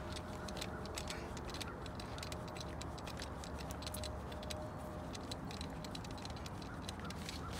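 Hand grease gun being pumped, with light irregular clicking, forcing grease into a trailer wheel bearing held in a bearing packer. A low steady hum runs underneath.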